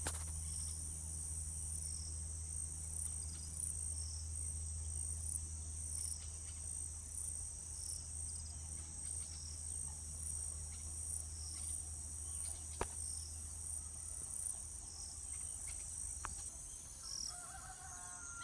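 Steady high-pitched chorus of insects shrilling without pause, over a low steady hum that fades out about three quarters of the way through. A short bird call sounds near the end.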